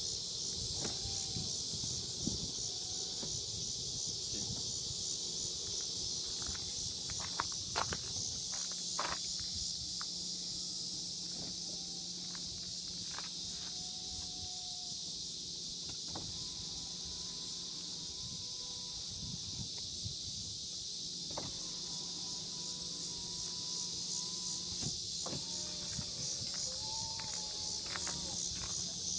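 Steady chirring of insects throughout, with a few scattered clicks and some faint short whines.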